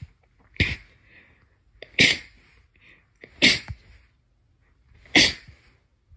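Four sharp sneezes in a row, each sudden and loud, about a second and a half apart.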